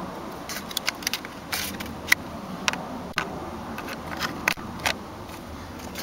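A screwdriver prying at a plastic cover on a GM steering column, making scattered sharp clicks and scrapes of metal on plastic.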